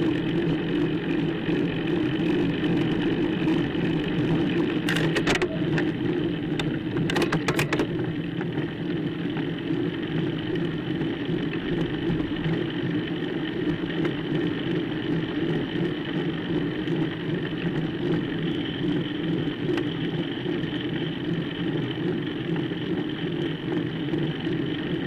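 Road bike ride audio on a tarmac lane: a steady whir and road noise throughout, with a few sharp clicks about five and seven seconds in.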